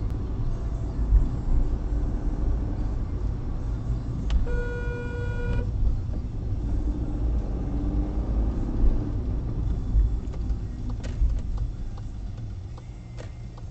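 Low road and engine rumble heard from inside a moving car, growing quieter near the end as the car slows to a stop. About four and a half seconds in, a car horn sounds once for about a second.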